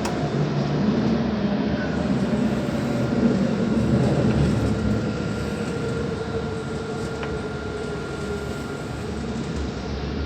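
Dubai Tram running on its rails: a steady rumble with a faint whine that drifts lower in pitch through the middle.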